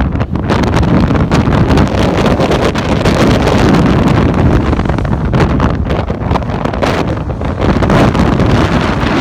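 Strong wind buffeting the microphone: a loud, gusting rush of noise with no distinct tones.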